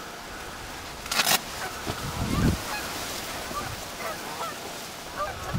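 Geese honking, many short faint calls overlapping. A brief sharp rustle-like noise comes about a second in and a low thump a second later.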